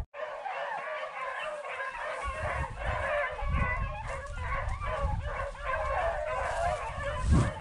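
A pack of beagles baying on a rabbit's trail, many voices overlapping without a break. Wind buffets the microphone from about two seconds in.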